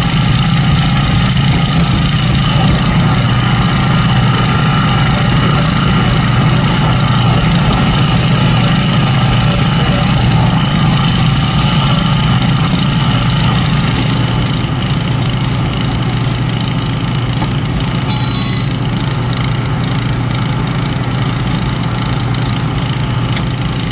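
The small gasoline engine of a portable hydraulic rescue-tool power unit running steadily under load, driving a hydraulic spreader. Scattered faint clicks come through in the second half.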